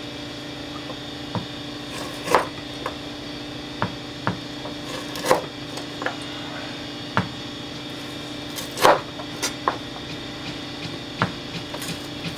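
Cleaver chopping frozen beef fat into small pieces on a wooden cutting board: a dozen or so sharp knocks of the blade against the board at uneven intervals, the loudest about nine seconds in, over a steady low hum.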